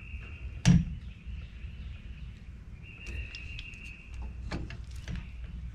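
A single sharp metal knock about a second in as the grab handle is seated on the steel boat-trailer ladder, followed by a few light clicks of the frame being handled. A steady high insect buzz comes and goes behind it.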